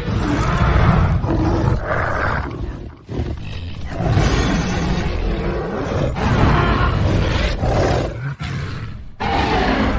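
Composite dinosaur roar sound effect, mixed from Carnotaurus roars and Night Fury dragon roars: a run of long, loud roars that break off briefly about three seconds in and twice near the end.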